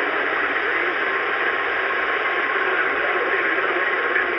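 CB radio receiving on channel 6 (27.025 MHz) with no one talking: a steady rush of static from its speaker.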